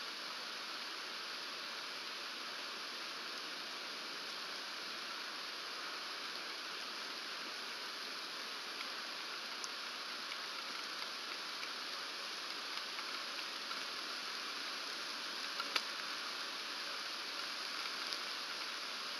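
Steady rain hissing on the pine branches and nest, picked up by an outdoor nest-cam microphone, with a few sharp ticks, the loudest about 16 seconds in.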